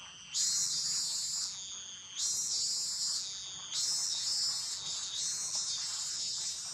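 High-pitched insect chorus buzzing, swelling up suddenly three times about a second and a half apart and fading slowly after each.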